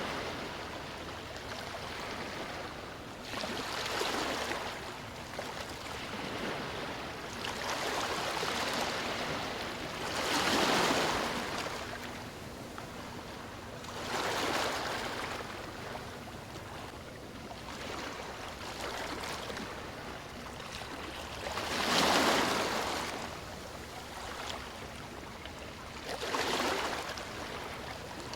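Sea waves breaking and washing up on a beach: a constant rush of surf that swells into a louder wave every four to eight seconds, then fades back.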